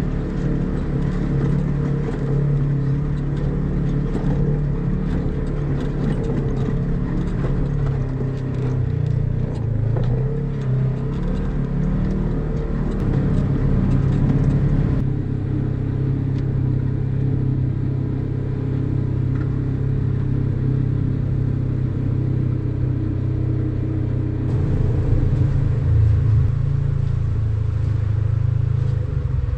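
Polaris RZR side-by-side engine running at driving speed over a rough, rocky trail, its note rising and falling with the throttle. Rattling and rock clatter are heard over the first half.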